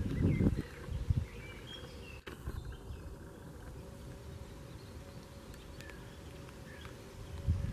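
Wind buffeting the microphone in low gusts for about half a second at the start and again near the end, with faint outdoor ambience and scattered short bird chirps in the quieter stretch between.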